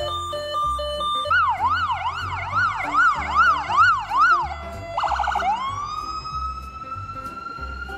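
Electronic ambulance siren switching modes: a two-tone hi-lo, then a fast yelp rising and falling about twice a second, a short burst of rapid pulses about five seconds in, then a wail rising and holding high. Background music with a low beat runs underneath.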